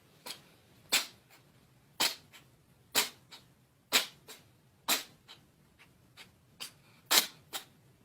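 A pet sneezing over and over in a fit, about once a second, each sneeze often followed by a smaller one.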